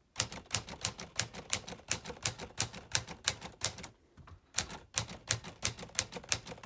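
Smith Corona Sterling portable manual typewriter being typed on: sharp key strikes about three a second, with a short pause about four seconds in.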